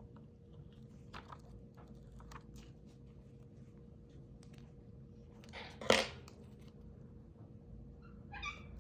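Faint clicks and taps of small objects handled on a desk, with one loud, short, sharp sound about six seconds in and a brief chirping call near the end.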